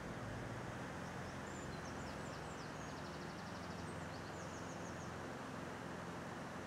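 Steady outdoor background of road traffic noise, with a bird's faint, high, rapid trill from about one to five seconds in.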